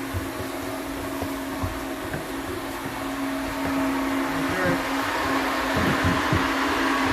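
Electric blower running: a steady hum over a rush of air, getting a little louder over the seconds.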